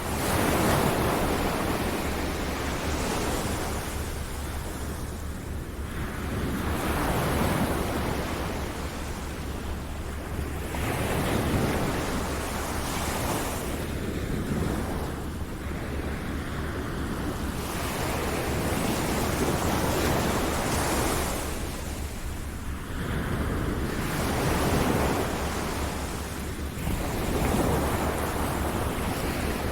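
Ocean surf: waves breaking and washing in, a dense hiss of water that swells and falls back every two to four seconds.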